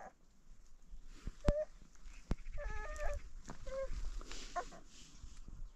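A hen clucking in a few short calls, with a couple of sharp knocks, the loudest about a second and a half in, over a low rumble.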